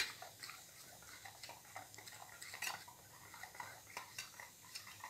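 A metal utensil stirring thick flour-and-water batter in a stainless steel bowl, clinking against the sides in faint, irregular taps.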